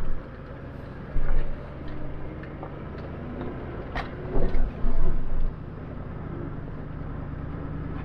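Toyota LandCruiser 79 series running steadily on the move, a low engine drone, with a few loud thumps and knocks about a second in and again between four and five and a half seconds in.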